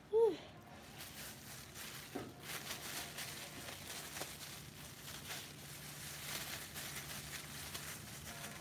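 Thin disposable plastic gloves crinkling and rustling as they are pulled onto the hands. It comes as faint, irregular crackles, after a brief falling vocal "hmm" at the very start.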